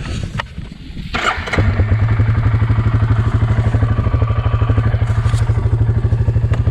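Farm motorbike engine starting about a second in, then running steadily with a regular pulsing beat.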